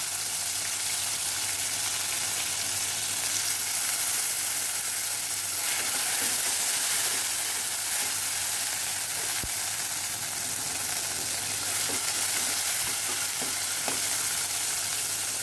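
Chopped tomatoes sizzling in hot oil in a pressure cooker, a steady frying hiss. A ladle stirs them, with a few faint scrapes against the pan.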